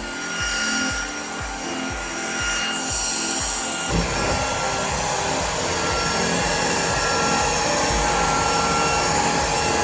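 Micol cordless stick vacuum running, its motor giving a steady whine while the powered brush head rubs along the floor. About four seconds in, the rushing noise grows louder and holds steady. Background music with a steady beat runs under it at first.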